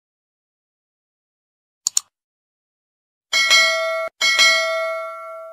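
Subscribe-button sound effect: a quick double mouse click, then a bell ringing twice, the second ring fading out slowly.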